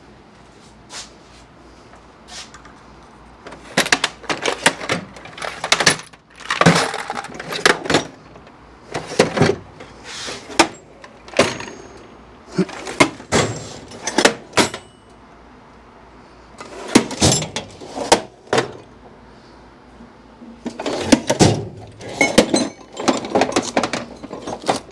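Metal hand tools clanking and clattering in irregular bursts of sharp knocks, with quieter gaps between.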